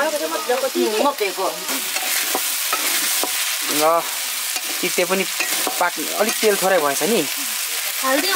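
A chopped titte mixture being dry-fried in an iron pan and stirred with a flat metal spatula: steady sizzling with the spatula scraping the pan.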